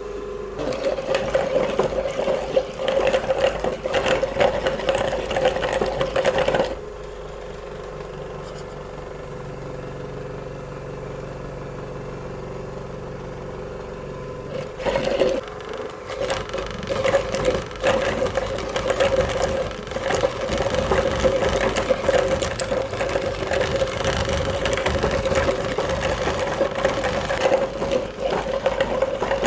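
Electric meat grinder running with a steady motor hum, grinding artificial frogs with dense crackling for the first six or so seconds. It then runs more quietly for about eight seconds, and the loud grinding and crackling return about halfway through and carry on.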